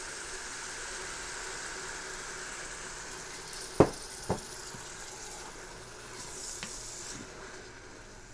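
Chicken, onions and peppers with freshly added broth sizzling in an Instant Pot's stainless steel inner pot on sauté mode, a steady hiss. A wooden spoon stirring knocks sharply against the pot twice about four seconds in.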